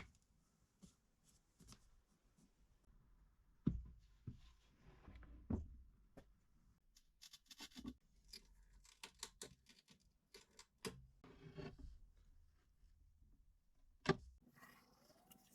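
Quiet handling noises of hand work: scattered taps and clicks with stretches of scraping and rustling, and two sharper knocks, one about four seconds in and one near the end.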